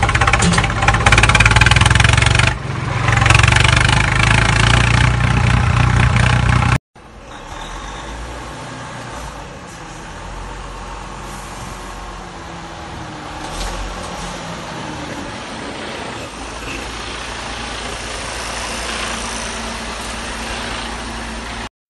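Motor vehicle engine running steadily, loud for about the first seven seconds; after a sudden cut, quieter steady engine noise.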